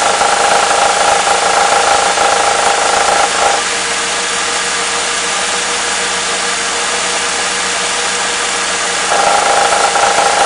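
Mercedes M111 four-cylinder engine idling with a knock that is easily taken for worn hydraulic lifters. A steady high whine over the engine noise cuts out about three and a half seconds in and comes back about nine seconds in.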